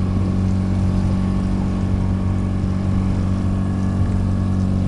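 Outboard motor running steadily at trolling speed, an even drone with no change in pitch.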